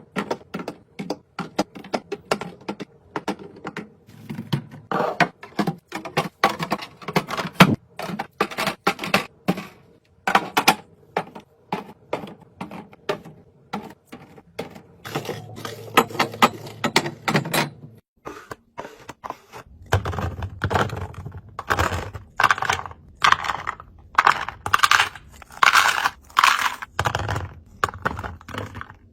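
Food containers and packages being handled and set down while a fridge is restocked: a quick run of clicks, taps and light knocks. It is broken by longer scraping or rustling stretches around the middle and again in the latter part.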